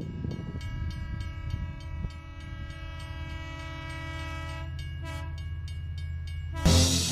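Train horn sounding one long blast of about four and a half seconds, then a short toot about five seconds in, over the low rumble of the passing train. Music with a strong beat comes in near the end.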